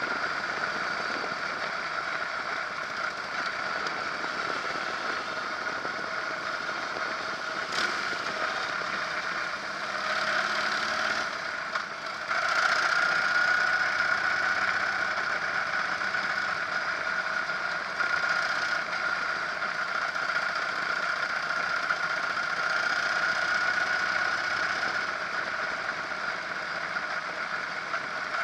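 Harley-Davidson Electra Glide's air-cooled V-twin engine running under way, heard close up with steady wind and road noise. The sound rises briefly around ten seconds in and stays louder from about twelve seconds in.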